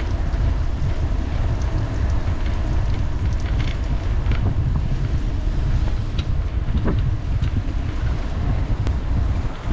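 Steady low wind rumble on the microphone of a handlebar-mounted camera while riding a bicycle, mixed with tyre noise on the asphalt cycle path and a few light ticks from the bike.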